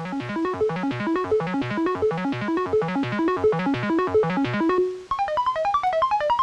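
Background music, a fast repeating run of keyboard-like notes. About five seconds in it holds one note briefly, then switches to a higher, quicker pattern.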